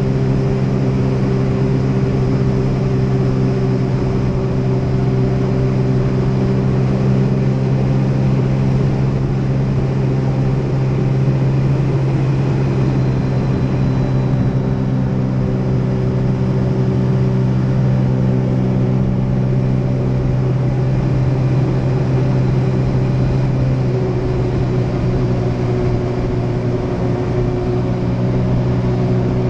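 Jet ski engine running steadily at a constant throttle while the watercraft cruises along, a continuous loud hum.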